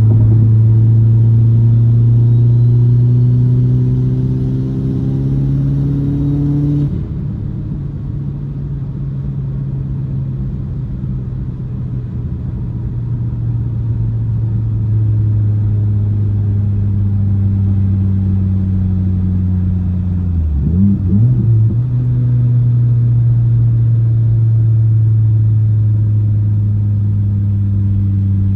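2008 Mitsubishi Lancer Evolution X's turbocharged four-cylinder engine driving under load: the revs climb steadily for about seven seconds, then drop off sharply. After that it runs at a steady cruise, with a brief wobble in engine pitch about twenty seconds in.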